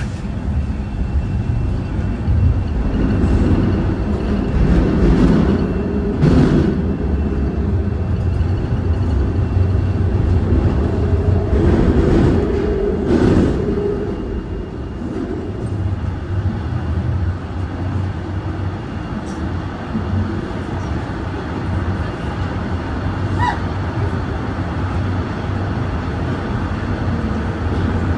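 TTC Line 1 subway train (a Toronto Rocket) running between stations, heard from inside the car: a steady low rumble of wheels on rail. It is louder through the first half with a couple of sharp knocks, then settles to a quieter even run.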